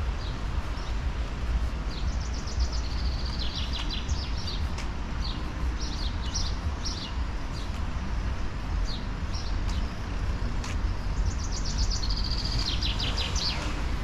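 A songbird singing: two bursts of quick, high chirping notes, about two seconds in and again near the end, with single chirps between, over a steady low rumble.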